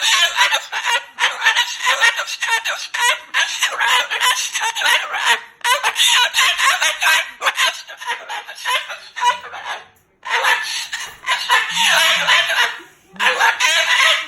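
Moluccan cockatoo vocalizing loudly in long, harsh runs of squawking and chatter, with short breaks about ten and thirteen seconds in.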